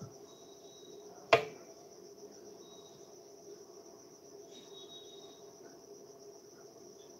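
A steady high-pitched pulsing trill over a low steady hum, with a few brief high tones and one sharp click about a second and a half in.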